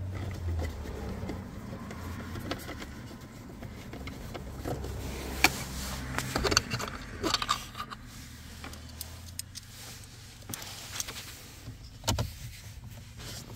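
Plastic dashboard trim of a 2015 Hyundai Sonata being handled and pressed back into place around a new head unit: scattered clicks and knocks, the sharpest about five and a half seconds in, a cluster just after, and another near the end, over a low rumble.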